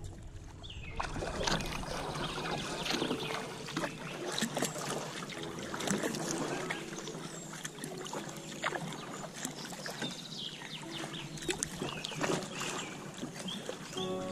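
Kayak paddle strokes: water splashing and dripping off the blades in short, irregular splashes, getting louder about a second in. A few short bird chirps can be heard over the water.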